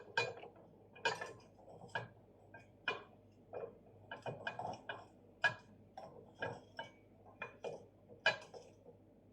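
A series of sharp, light clicks and taps, about one a second at first, then quicker and irregular.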